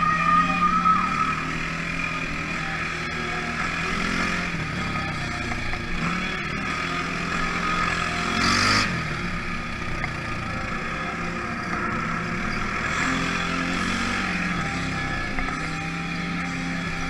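Polaris ACE 570's single-cylinder engine running as the machine drives a dirt trail, its pitch rising and falling with the throttle. A brief loud rush of noise about eight and a half seconds in.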